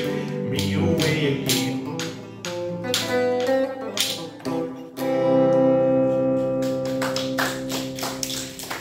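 Hollow-body electric guitar strumming the closing chords of a folk song, then one final chord that rings out from about five seconds in and stops shortly before the end.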